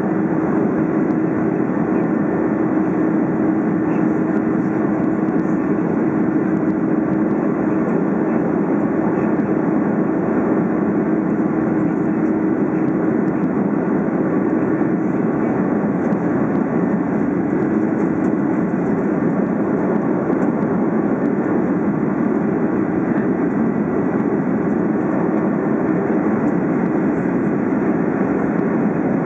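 Steady jet-engine and airflow noise of an Airbus A330 in the climb after takeoff, heard from inside the cabin. A steady droning hum runs under it, dropping away for a few seconds midway and then coming back.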